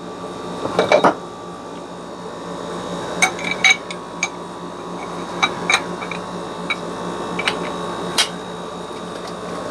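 A new bearing being pressed down onto a Corvair rear axle shaft through a split old bearing used as a driver: about ten sharp metallic clicks and clinks at uneven intervals, over a steady hum that grows slightly louder.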